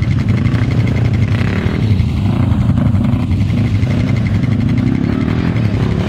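ATV engines running, with an engine revving up and down at times: a quad bogged down in deep mud being throttled while riders push it free.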